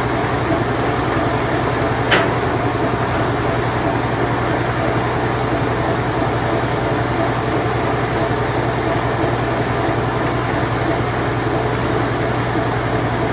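Whirlpool Imperial Clean Touch top-load washing machine running in its spin cycle: a steady, even motor and drum hum with a low tone underneath. A single short click about two seconds in.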